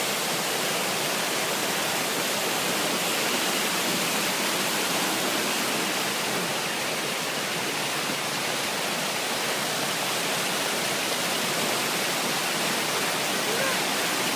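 Water fountain running, a steady rush of falling and splashing water.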